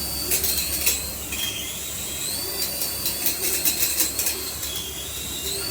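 A small motor's high whine that dips and rises in pitch, with scattered clicks and rattles.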